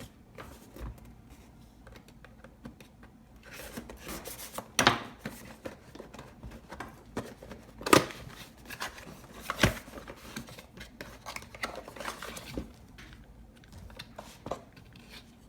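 GoPro suction cup mount's packaging being opened and handled: scattered rustling and scraping with a few sharp knocks, the loudest about eight seconds in.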